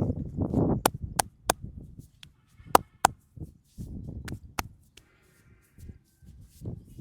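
Sharp hand taps on the head during a head massage, in quick groups: three about a second in, then a pair near three seconds, then another pair past four seconds, with softer low rubbing noise between them.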